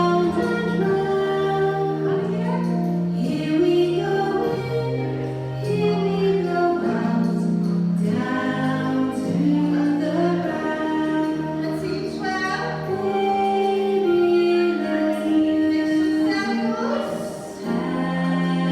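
A song with women's voices singing a melody of held notes.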